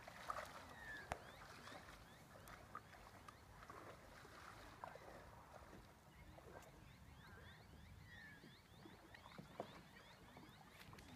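Near silence on a still lake: faint drips and small splashes of water around a kayak, with a faint quick high chirping in the second half.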